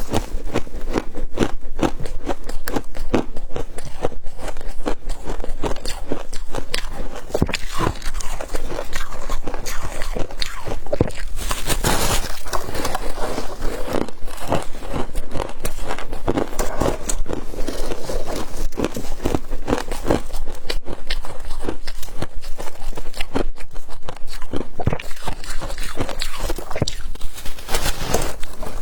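Close-miked biting and chewing of flavoured frost: a dense, continuous run of crisp crunches and crackles. A louder crunch comes about twelve seconds in.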